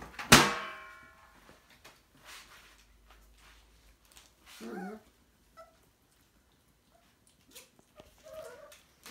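Goldendoodle puppies at play: one puppy gives a brief, wavering cry about five seconds in and another short cry near the end. Just after the start a loud, sharp knock rings briefly.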